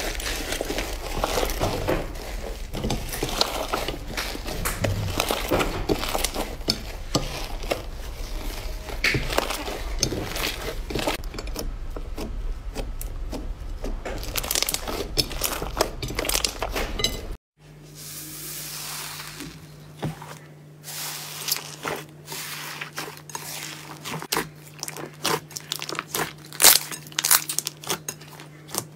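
Hands working slime: dense crinkly, crackling squelches as blue slime is pulled apart and pressed down. After a sudden cut about two-thirds in, orange slime is stretched, giving a run of sharp pops and clicks over a steady low hum.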